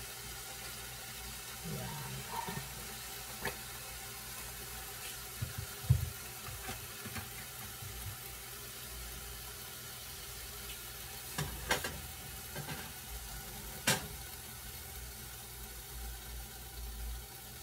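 Canola oil heating in an empty nonstick pan on an electric stove: a faint steady hiss over a low hum, broken by a few short sharp ticks, one about six seconds in, two near twelve seconds and one near fourteen.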